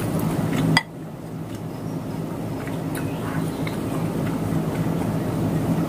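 Steady low hum and hiss of room noise, picked up by a phone's built-in microphone with the external mic unplugged. A sharp click comes a little under a second in, after which the noise drops and slowly swells back. A few faint clicks follow as a wooden spoon goes into the bowl.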